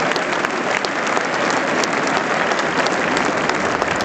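Large crowd applauding steadily, a dense even clatter of many hands clapping.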